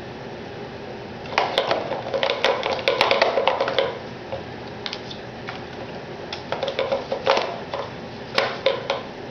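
Ball rolling and rattling around the track of a plastic circular cat toy as a kitten bats it, in bursts of clicking and clattering. The first burst starts about a second in and runs a few seconds, and shorter bursts follow around the middle and near the end.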